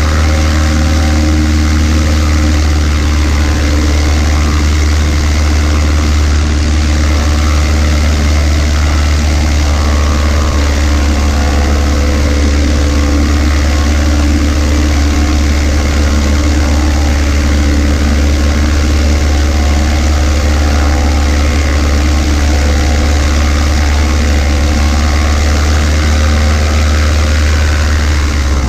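Cessna 140A's air-cooled four-cylinder Continental engine and propeller idling steadily with the aircraft standing on the ground, a constant low hum with no change in speed.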